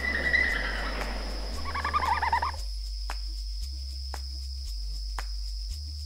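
Red panda giving high-pitched squealing calls for about the first two and a half seconds, the last of them a quick warbling series. After that only background music with a low, steady beat and soft clicks about once a second.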